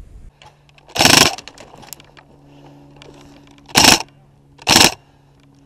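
Airsoft electric rifle firing three short bursts: one about a second in, then two more close together near the end. A faint steady hum runs underneath.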